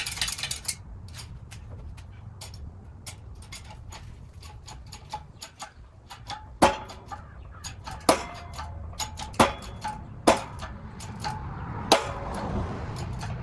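A new front wheel bearing being pressed into the steering knuckle of a 3rd-gen Toyota 4Runner. Steady irregular clicking of the press is heard over a low hum. About five loud sharp cracks come at irregular intervals through the middle and later part as the bearing is forced home until it bottoms out.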